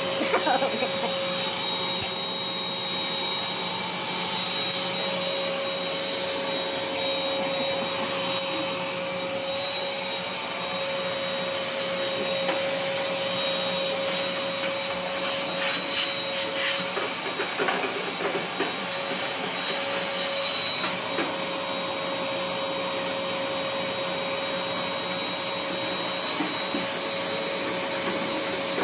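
Wet/dry shop vacuum running steadily with a constant whine, its hose sucking dust and lint out of the base of a gas dryer cabinet.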